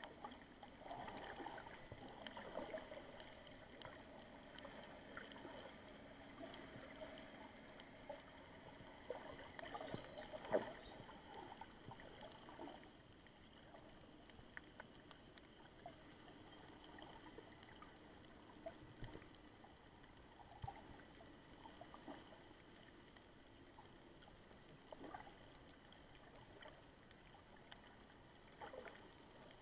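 Faint, muffled underwater ambience picked up by a submerged camera: a low hazy water hum with scattered small clicks and ticks.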